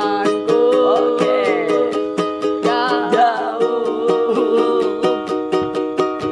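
Ukulele strummed in a steady rhythm, about four strums a second, with a wavering melody line over it.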